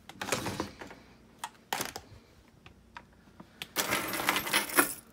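Small objects on a wooden desk being handled and shoved aside: scattered clicks and knocks of plastic and metal, then a denser clattering rattle about four seconds in.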